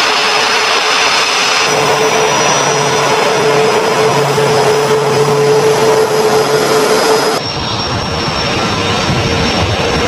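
Boeing VC-25 (Air Force One, a Boeing 747) on the ground with its jet engines running: a loud, steady rushing noise with a high whine through it. The sound changes abruptly about seven seconds in.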